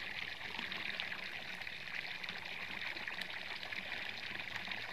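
Water pouring steadily from a pipe outlet into a shallow canal, a constant splashing.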